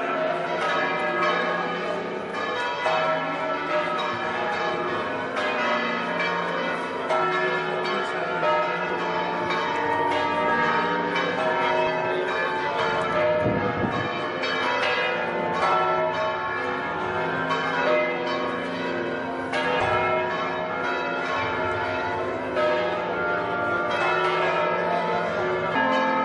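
Church bells pealing without a break, several bells of different pitches ringing over one another.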